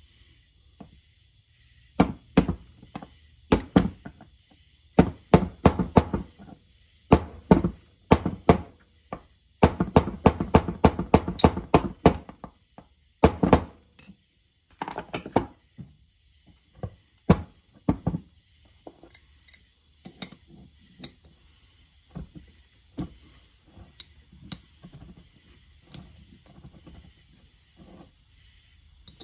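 Metal hammer blows on a steel front wheel hub: bursts of rapid strikes through the first half, then lighter, more widely spaced taps.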